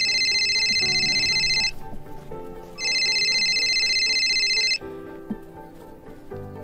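Mobile phone ringing: two rings of a high, rapidly warbling electronic tone, each about two seconds long and a second apart, over soft background music.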